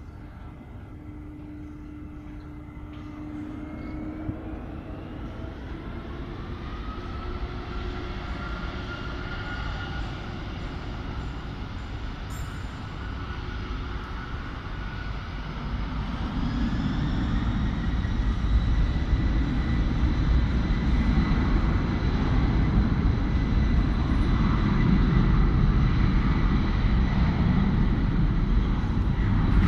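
Jet airliner's engines spooling up to takeoff thrust: a whine rises in pitch over the first several seconds, then a deep rumble builds and grows steadily louder as the aircraft accelerates down the runway.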